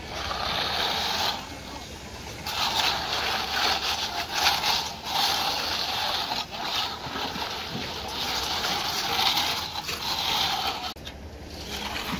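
Straightedge being scraped across wet concrete to screed the slab: a wet, rasping swish in about four long strokes with short pauses between them.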